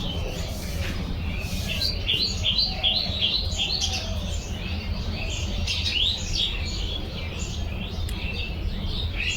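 Small birds chirping: a constant run of short, quick, high chirps over a steady low rumble.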